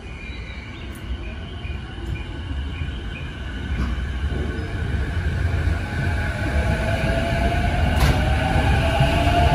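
JR East E233-series electric train pulling out and accelerating, its traction motor whine rising in pitch as the running noise of the cars grows louder.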